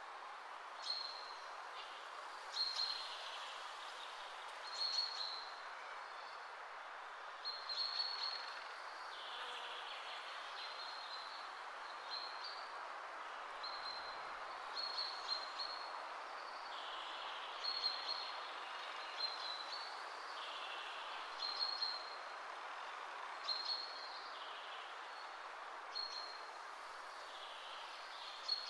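Birds chirping, short high calls every second or two, over a steady rushing background noise.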